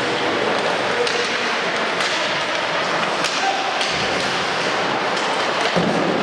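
Ice hockey play sounds: a steady wash of skates on the ice and crowd noise, with several sharp knocks from sticks, the puck and players hitting the boards.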